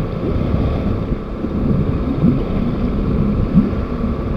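Outboard motor of an inflatable boat running at low speed, under heavy wind buffeting on the microphone.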